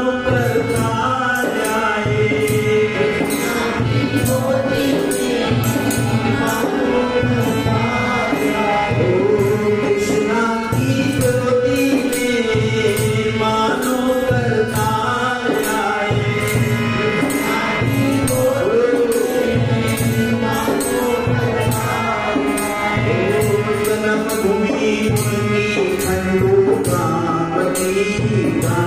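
Devotional bhajan music: a harmonium melody over a steady drum beat and regular jingling percussion.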